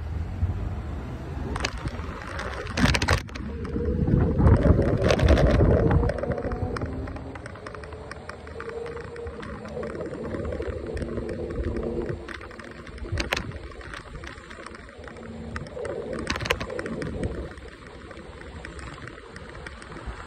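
Wind and road noise of an electric scooter ride, swelling loudest a few seconds in, with a faint whine that rises and falls and a few sharp clicks.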